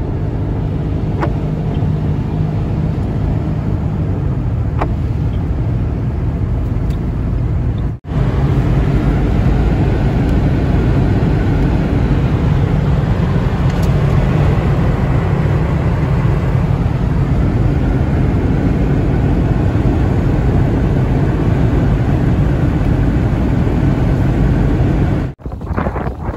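Steady road noise inside a moving car's cabin on a wet highway: a low rumble of engine and tyres. There is a break about eight seconds in, after which it is louder.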